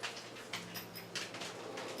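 Faint rustles and light taps of objects being handled, over a steady low hum.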